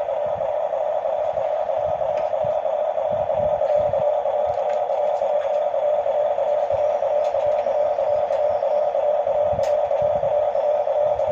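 Bulldozer running steadily, a constant drone with irregular low knocks under it.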